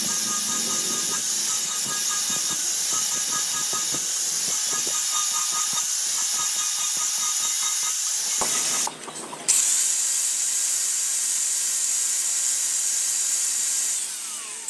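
A steady, high-pitched hiss with faint whining tones beneath it. It breaks off briefly about nine seconds in, then resumes.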